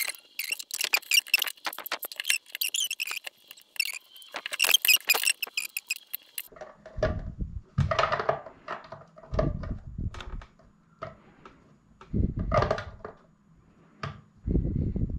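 The projector's plastic shell squeaks and creaks in quick, dense runs as a screwdriver works at it for about six seconds. Then dull knocks and rubbing follow as the unit is handled.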